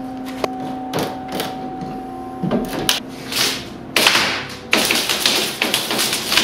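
Hammer knocking at nails in a plywood shipping crate, a few sharp knocks in the first three seconds. From about four seconds in comes a dense scraping and clattering of wood as the crate's plywood side panel is swung open.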